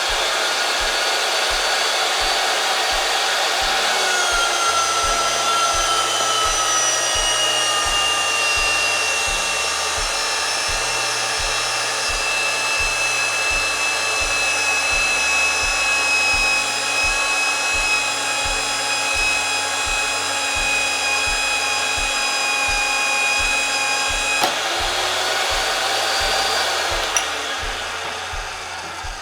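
Electric pipe-threading machine running as its dies cut threads onto a pipe: a loud, steady, high-pitched whine of several tones that slowly fall in pitch, with a change about 24 seconds in, and the sound dies away near the end.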